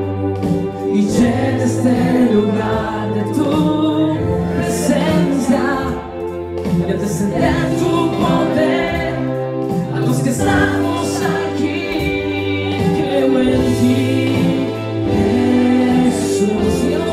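Christian praise and worship music: a group of voices singing over a band, with sustained low bass notes underneath.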